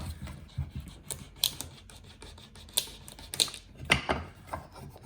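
Knife blade scraping surplus hardened polyamide knot filler off a filled knot in wood: a run of irregular scrapes with sharp clicks every half second to a second.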